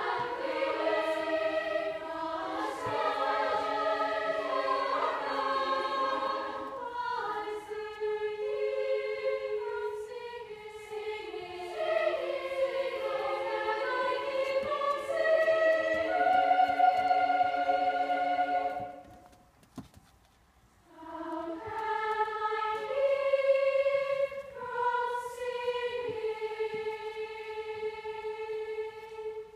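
A large choir of women singing a slow piece in several parts with long sustained notes. The singing stops for about two seconds past the middle, then starts again, with a long held note near the end.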